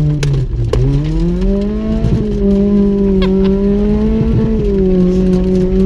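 Nissan Micra rat rod's engine, heard from inside the cabin, so loud; it revs up about a second in and then holds a steady pitch, with a few knocks and rattles as the car jolts over bumpy ground.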